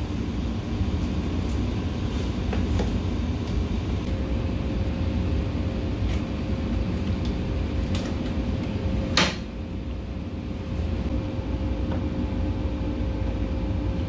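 Light plastic clicks and taps as wires and connectors are slotted into an air conditioner indoor unit's control-board box, with one sharp click about nine seconds in. Under them runs a steady low background hum, and a faint steady tone from about four seconds in.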